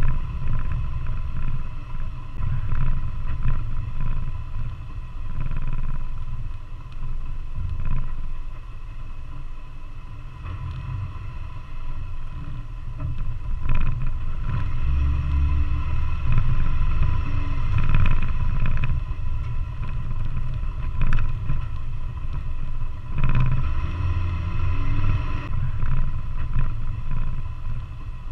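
Off-road vehicle driving along a rough dirt trail, heard from a camera on its hood: a low rumble with a steady whine over it, and a few knocks as it goes over bumps.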